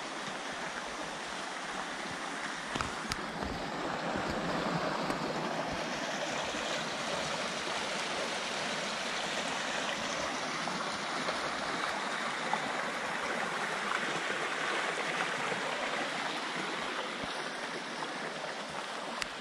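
Small rocky forest stream rushing and gurgling over stones and little cascades, a steady water noise that grows louder through the middle and eases slightly near the end.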